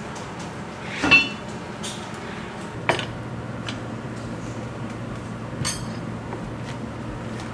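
Kitchenware clinking: three separate knocks and clinks, the loudest about a second in, over a steady low hum that drops in pitch about three seconds in.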